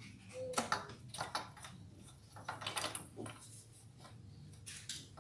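Light metallic clinks and short scrapes, in a few small clusters, as a motorcycle exhaust pipe and its mounting bolts are handled and set in place by hand.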